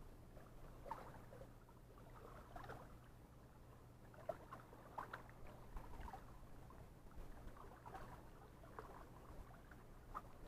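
Near silence: a low steady hum with faint, scattered small ticks.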